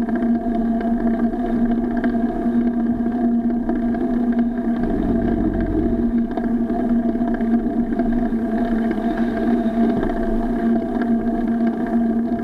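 Steady muffled rumble of a bicycle ride heard through an SJ4000 action camera on the bike: tyre-on-pavement and wind noise with a constant low hum running through it. A brief heavier low rumble, a bump or gust, comes about five seconds in.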